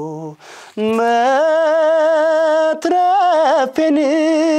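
A man singing an Amharic song unaccompanied, in a high register. He takes a short breath about half a second in, then holds a long steady note, followed by notes with wavering, ornamented turns.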